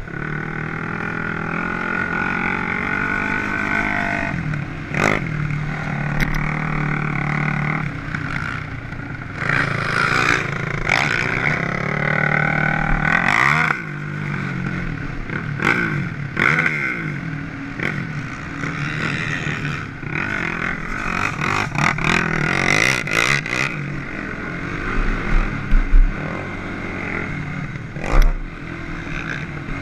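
Off-road vehicle engine running hard close to the microphone, its pitch rising and falling with the throttle over the bumps. Several sharp thumps from the machine hitting the ruts, with gusts of wind on the microphone.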